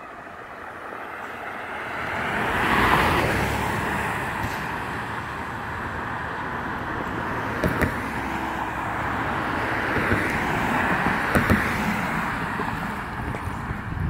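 Cars passing on a two-lane road: tyre and engine noise swells as one car goes by close about three seconds in, then a steady wash of traffic with a second swell near the end, and a few light clicks.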